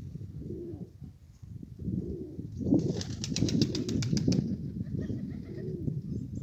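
Nikolaev pigeons cooing, with a burst of wing flapping about three seconds in that lasts under a second and a half, at about eight wingbeats a second.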